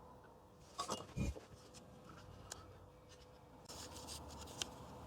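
Faint scratching and rubbing with small clicks as the pins of a surface-mount IC are hand-soldered onto a circuit board. There is a brief cluster of scratches with a soft bump about a second in, and more scratching toward the end.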